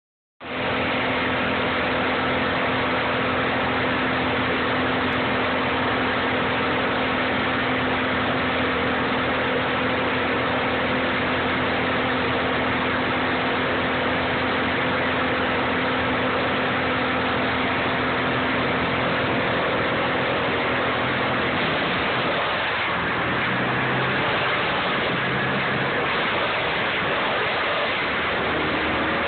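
Morbark wood chipper running loud and steady with a constant hum; about 22 seconds in its tone changes, dropping lower and wavering.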